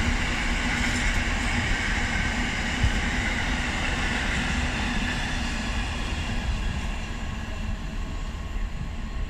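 Empty intermodal container flat wagons of a freight train rolling past, with a steady noise of wheels on rail. It gets gradually quieter over the last few seconds as the end of the train goes by.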